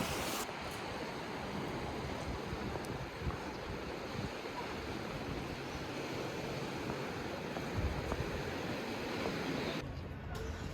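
Sea surf: waves washing in a steady rush of noise.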